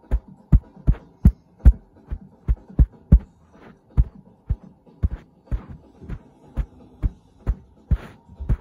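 Muffled, loud bass-drum beat of amplified music, about two and a half thumps a second, with a faint steady held tone behind it.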